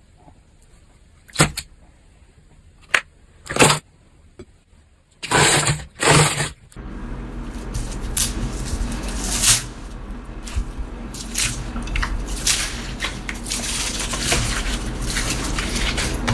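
Slime being handled: a few separate squishes over a quiet background, then, from about seven seconds in, louder and dense crackling and popping over a low hum.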